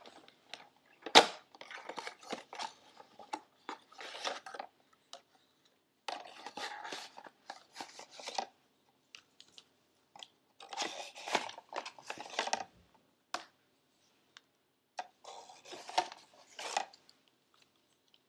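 Crinkly plastic packaging of a slime-making kit rustling and crackling as it is handled, in four spells of a few seconds each, with one sharp click about a second in.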